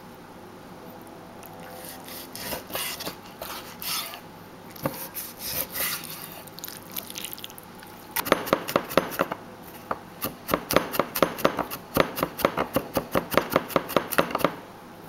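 Cleaver on a wooden cutting board: a few seconds of irregular scraping and knocks, then, about halfway in, rapid even chopping as garlic is minced, about seven strikes a second with one short pause, stopping just before the end.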